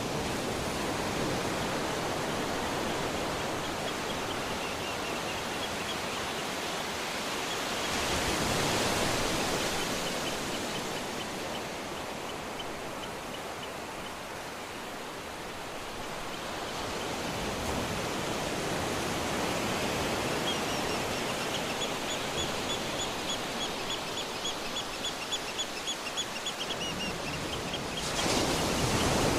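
Surf washing onto a beach in a steady rush, swelling as waves break about nine seconds in and again near the end. Birds chirp over it in quick runs of short high notes.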